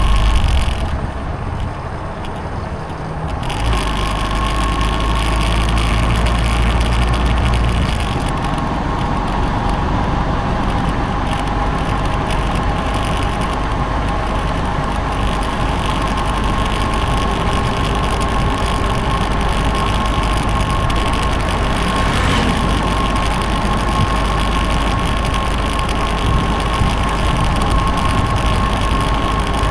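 Motorcycle running steadily on the move, with wind rumbling on the microphone and a steady high hum. It eases off briefly about a second in, then picks up again.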